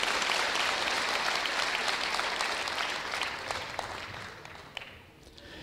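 Audience applauding, dying away about four to five seconds in.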